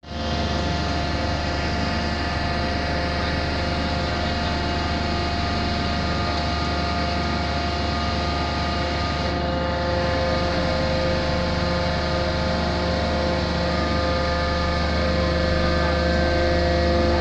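Engine of heavy construction machinery running steadily: a constant, unchanging drone with a strong low hum and no hammer blows.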